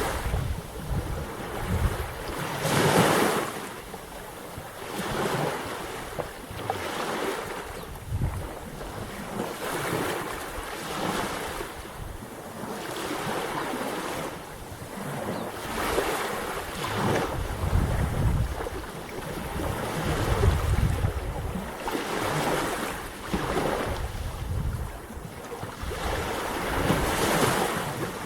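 Black Sea waves washing in, in repeated surges every second or two, with wind rumbling on the microphone.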